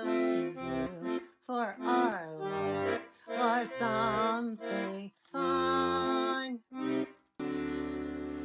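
A song being performed: a voice singing wavering, sliding notes in short phrases over steady held instrumental chords.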